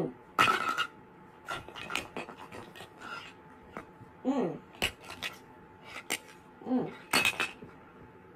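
Hard plastic toy food clattering and tapping against a plastic tray in quick runs of clicks. Three times a person's voice makes a short sound that falls in pitch.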